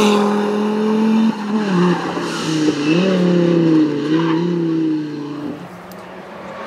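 Audi Sport quattro S1 E2 Group B rally car's turbocharged inline-five engine running at high revs as it passes close. The pitch drops about a second and a half in, then rises and falls again as the car pulls away, and fades out near the end.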